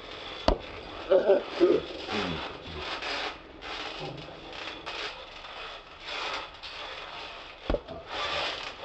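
People bouncing on a netted backyard trampoline: uneven rustling and creaking from the mat and springs, with two sharp thumps, one about half a second in and one near the end. A short vocal cry comes about a second in.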